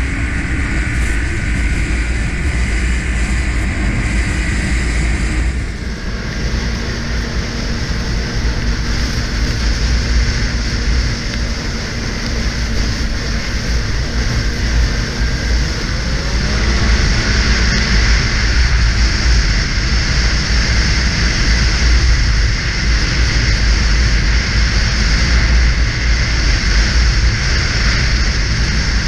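Yamaha snowmobile running at speed along a snowy trail, its engine and track noise mixed with heavy wind buffeting on the microphone. It grows louder a little past halfway.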